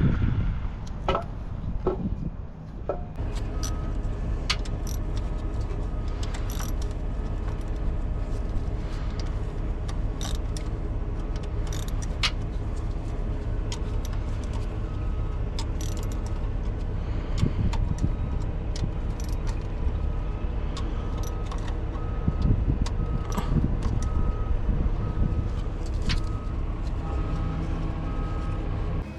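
An engine running steadily, with scattered sharp clicks and knocks from work nearby and, in the second half, a string of short evenly spaced beeps at one pitch.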